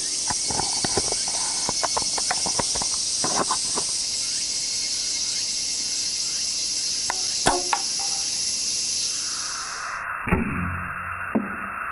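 Clicks and rattles of a small 3D-printed plastic crossbow being handled and loaded with a bolt, over a steady hiss. Near the end a sharp snap as the rubber-band crossbow is shot, followed about a second later by a second knock.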